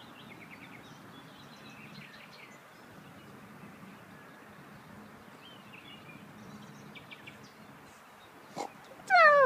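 Steady outdoor background with faint, scattered bird chirps. Near the end comes a loud, high vocal cry that slides steeply down in pitch, howl-like.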